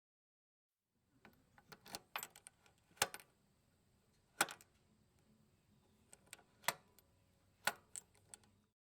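Metallic clicks and clacks of a gun being handled, as in a reload or cocking. Irregular light clicks begin about a second in, with four sharper clacks among them; no shot is fired.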